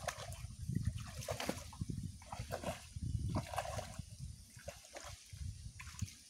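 Shallow, muddy swamp water splashing and sloshing as people wade through it and a man gropes in it with his hands for fish. The splashes come unevenly and are strongest in the first half, easing off near the end.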